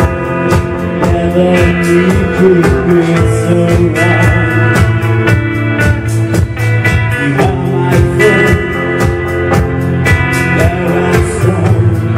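Live band playing: a drum kit keeps a steady beat under sustained electronic-organ chords and electric guitar.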